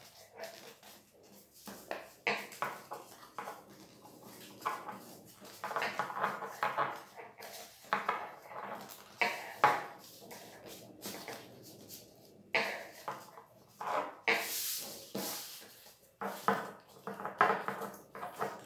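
A sheet of paper being folded and creased by hand: irregular rustling, crinkling and sliding of the paper, with sharp little clicks and taps against the table.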